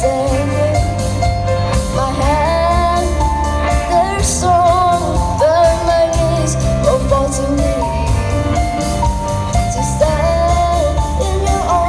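Live band playing a song, a lead singer's voice carrying the melody over bass guitar and a steady drum beat.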